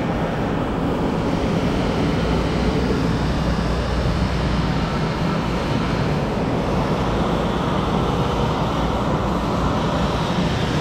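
Henschel FM10 10-liter high-intensity mixer running at high speed, its mixing tool at about 24 m/s tip speed: a loud, steady whirring rush from the motor and spinning tool.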